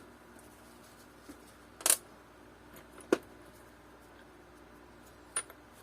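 A few separate sharp metallic clicks as nuts and washers are handled and fitted on a bike axle, the loudest about two seconds in.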